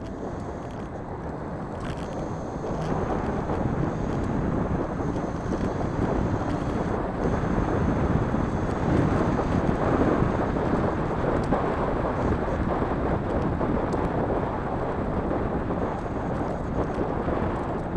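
Wind buffeting the scooter-mounted microphone over the rumble of the scooter's small wheels rolling on asphalt. It is a steady low noise that grows a little louder about two seconds in.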